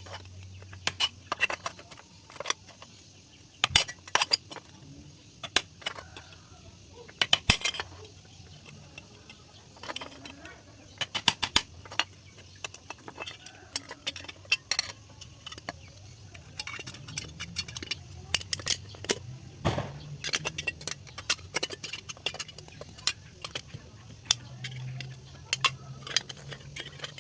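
Screwdriver and pliers working a hole through the middle of a tin-can disc: irregular sharp metallic clicks, clinks and scrapes. The tin is stiff and hard to pierce.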